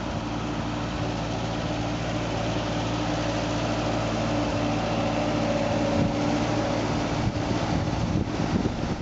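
Engine of a small vintage farm tractor running steadily, growing gradually louder as the tractor comes nearer; near the end the steady hum breaks up into rougher, uneven noise.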